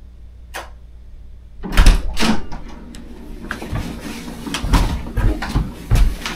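Hotel room door: a faint click, then the latch clacks and the door swings open with loud thuds about two seconds in. Heavy footsteps and the rustle of bags follow as people walk in across the tiled entry.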